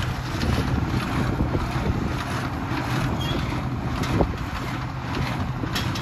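International Harvester 956 XL tractor's six-cylinder diesel running steadily under load as it drives a New Holland small square baler, with a few sharp knocks. Wind buffets the microphone.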